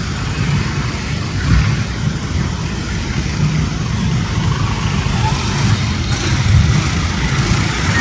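Busy street traffic: the engines of jeepneys, motorcycles and cars running as they move through an intersection, a steady low rumble.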